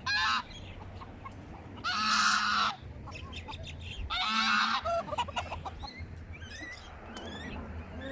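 Domestic goose honking: three loud, harsh calls about two seconds apart. Small caged birds chirp faintly near the end.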